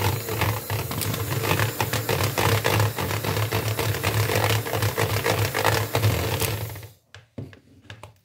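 Electric hand mixer running, its steel beaters whisking apple purée and clattering against a ceramic bowl with many rapid ticks over a steady motor hum. It switches off about seven seconds in, followed by a few light knocks.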